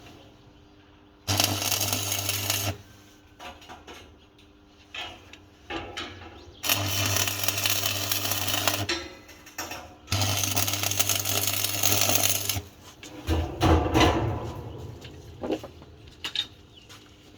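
Electric arc welding in three short bursts, each a hiss and crackle over a steady low hum, stopping and starting like tack welds. Near the end come a few sharp metal knocks.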